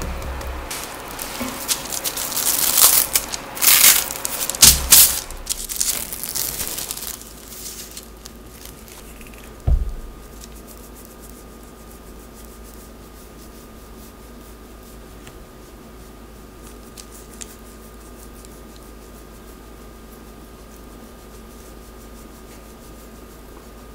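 Parchment paper crinkling and rustling as a floured loaf of bread dough is handled and shifted onto it, for about the first seven seconds. A single soft low thump comes near ten seconds, then only quiet room tone with a faint steady hum.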